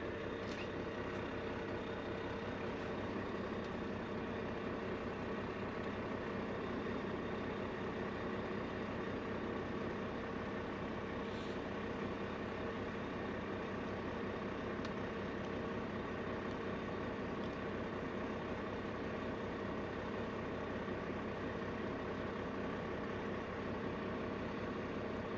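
Semi-truck engine running steadily at a constant low hum, heard from inside the cab, with no change in pitch or level.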